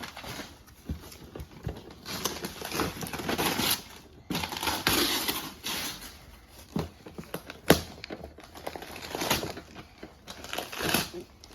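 Wrapping paper and packaging rustling, crinkling and tearing in irregular bursts as a gift is unwrapped, with one sharp knock about two-thirds of the way in.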